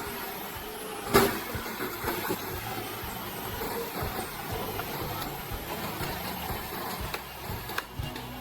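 Heavy logging machine's engine running steadily, with a sharp knock about a second in and a few lighter knocks after.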